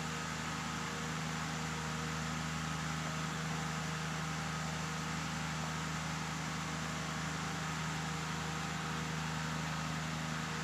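Steady, unchanging machine hum: a low buzz with an even hiss over it.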